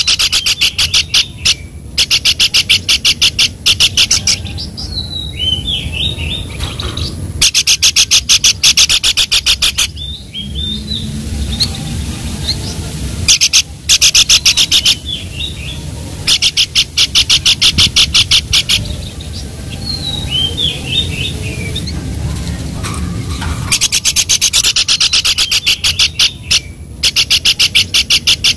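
Pelanduk babbler song played as a masteran: repeated loud bursts of a fast trill of evenly spaced high notes, each lasting two to three seconds, with softer scattered chirps between them.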